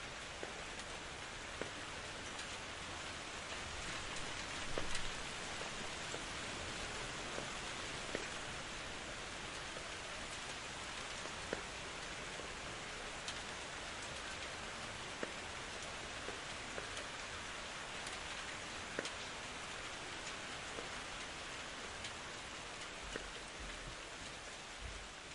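Steady rain falling, an even hiss with scattered single drops ticking sharply, beginning to fade near the end.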